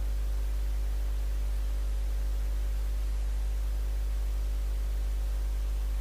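Steady low electrical hum with evenly spaced overtones over a faint hiss, unchanging throughout: the background noise of the recording equipment.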